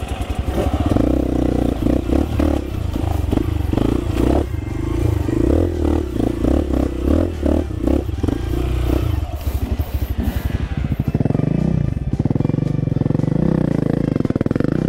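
Off-road motorcycle engine running at low speed on a rough trail, its note pulsing unevenly with the throttle, then revving up and down in the last few seconds.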